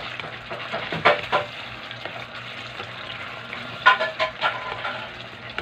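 Banana heart sizzling in tomato sauce in a metal wok while a ladle stirs it, with a few sharp scrapes and knocks of the ladle against the pan about a second in and again near four seconds in.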